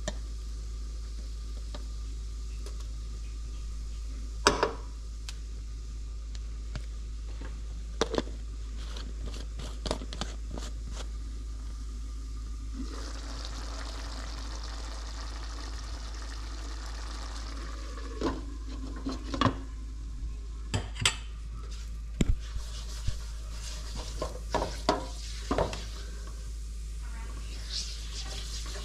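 Curry frying in hot oil in a nonstick pan: sharp clinks of a metal spoon against a glass jar and the pan, then a sizzle that starts about halfway through, with a run of knocks and scrapes as the curry is stirred.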